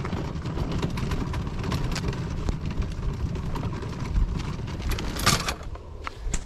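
Wind buffeting the microphone, a fluttering low rumble, with scattered light knocks and a short hiss about five seconds in.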